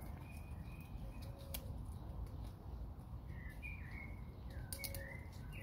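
Small birds chirping: a few short, high chirps near the start and a cluster of them in the second half, over a low background rumble.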